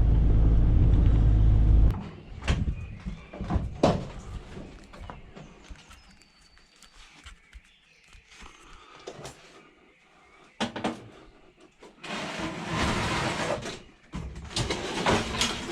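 A vehicle engine running steadily, then switched off about two seconds in. After it come scattered knocks and clunks, and near the end two louder stretches of rough scraping or rustling noise.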